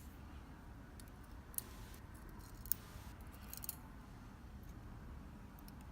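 A few short, sharp metal clicks, spread over a couple of seconds, over a low steady hum: small lock pins and tools being handled as the pin cylinder is taken apart one pin stack at a time.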